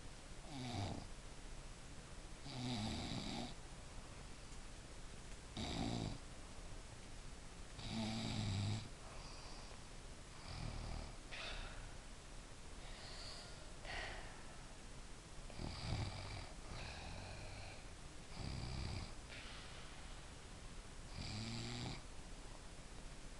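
Snoring, one breath about every two and a half to three seconds.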